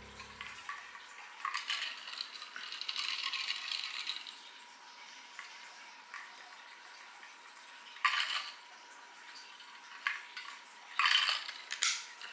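Kitchen sounds: a few seconds of running water, then a few sharp clinks of dishes and cutlery.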